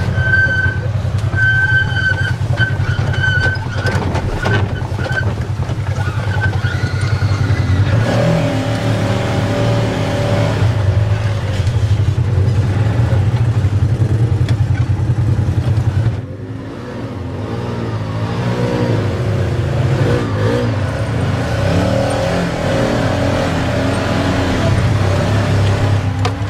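Side-by-side UTV engines running and revving over rough trail, their pitch rising and falling with the throttle. A high whine sits over the engines for the first few seconds. The sound drops suddenly about two-thirds of the way in, then builds again.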